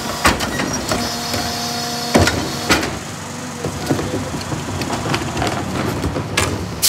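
Rear-loader garbage truck's hydraulic cart tipper whining for about a second and ending in a loud bang. Then repeated knocks and clatter as a plastic trash cart is tipped by hand against the hopper and the trash falls in.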